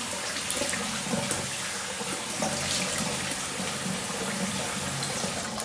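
Bathroom sink tap running steadily, water rushing and splashing into the basin as the face is rinsed after a wet shave; the flow cuts off at the very end.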